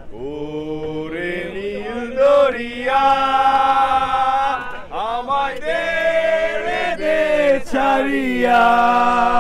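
A man singing a slow, chant-like song, holding long steady notes in several phrases with short breaks between them.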